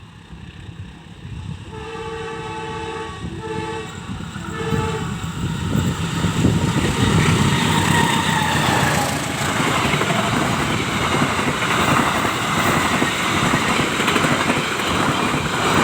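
CC203 diesel-electric locomotive sounding its horn three times, one longer blast and two short ones, then its engine roaring at full throttle, growing louder from about six seconds in and staying loud as the train passes.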